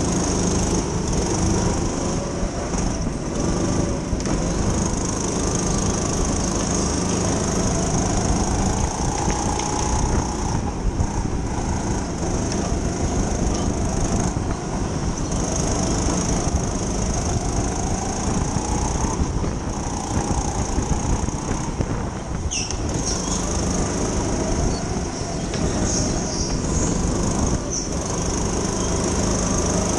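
Racing kart's small engine running hard, revving up and falling off again and again through the corners of a lap.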